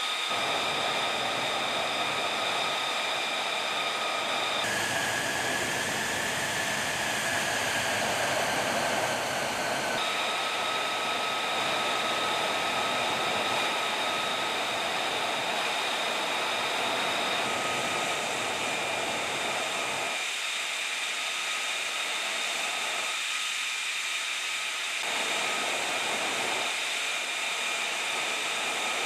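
Jet engine of an F-35A idling on the ground, its Pratt & Whitney F135 turbofan heard as a steady rushing hiss with high whining tones. The whine changes pitch abruptly about five and ten seconds in.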